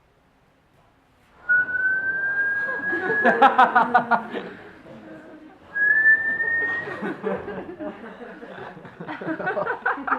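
A person whistles a long, slightly rising note twice, about four seconds apart, as a live sound effect. Each whistle is followed by a spell of voices and laughter with scattered clicks.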